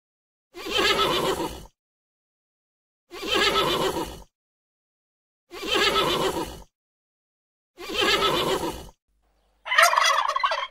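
A horse whinnying four times, each call about a second long and spaced about two and a half seconds apart, with dead silence between them. A turkey gobbles once near the end.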